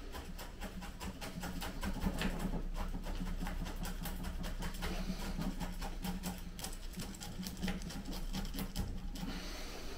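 Rapid, irregular scratching and crackling from soil and roots being worked in a pot-bound Lawson cypress rootball during transplanting, over a steady low hum.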